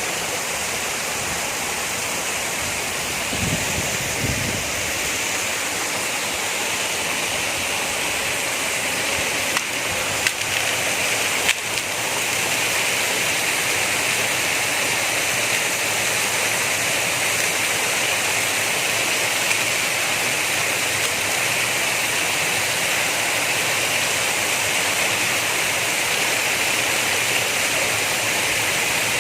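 Waterfall: falling water making a steady, even rush. A brief low thump about four seconds in and a few sharp clicks between ten and twelve seconds in break through it.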